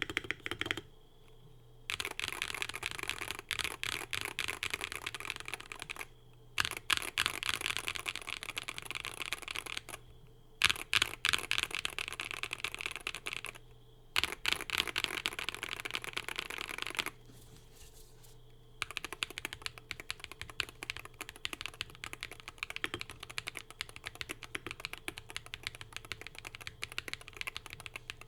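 Typing on a Wooting 60HE+ keyboard with hand-lubed WS Dash HE Hall-effect switches, stock keycaps, tape mod and full foam in an AIM60 aluminium case. Fast runs of keystrokes are broken by short pauses, and the typing turns softer and steadier about two-thirds of the way through.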